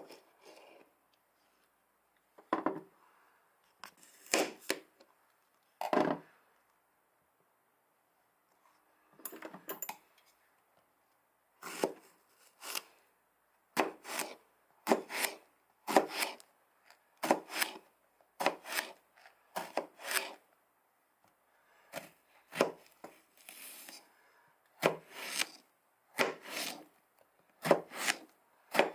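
Kitchen scissors snipping through a long purple eggplant, slicing it into rounds: one crisp cut after another. The cuts are scattered at first and come about once a second in the second half.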